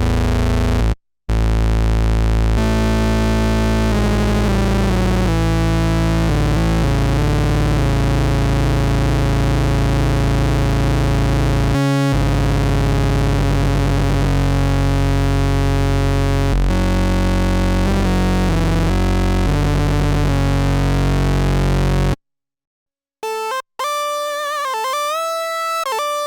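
Novation Bass Station II analog synthesizer playing a dense, sustained bass patch with heavy low end, briefly dropping out twice and then cutting off about 22 seconds in. After a short silence a cleaner, pitched patch starts, with notes that glide up and down.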